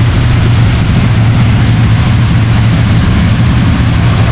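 Quad bike engine running steadily while riding, a constant low drone with a rushing hiss over it.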